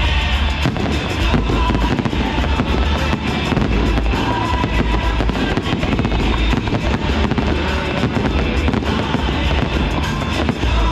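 Fireworks popping and banging over loud music played with the display.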